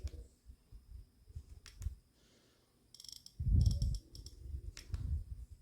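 Handling noise from a small handheld device being turned over in the hands: scattered light clicks and a few muffled bumps against the microphone, loudest a little past the middle.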